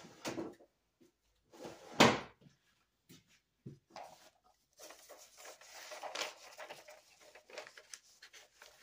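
Handling noises around a wooden soap loaf mold: a few light knocks, then one loud thump about two seconds in. From about five seconds on comes a patchy rubbing and rustling as a towel wipes along the paper-lined mold.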